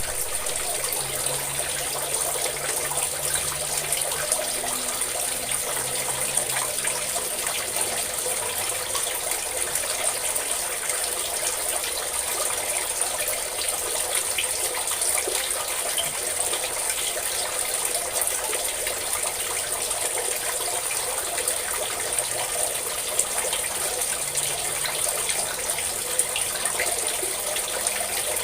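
A steady stream of water pouring and splashing, an even, unbroken rushing hiss. A faint low hum sits under it for the first seven seconds or so and again briefly near the end.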